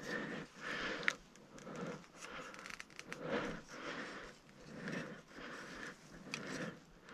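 A person breathing heavily and unevenly close to the microphone, winded from climbing, with a sharp click about a second in and another near the end.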